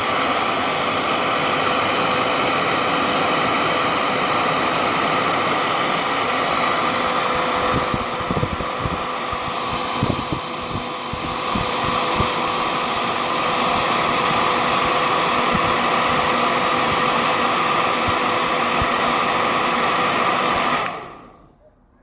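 Yellow Bird blow dryer running steadily: a loud rush of air with a steady whine, heating body butter in a jar. It switches off about a second before the end.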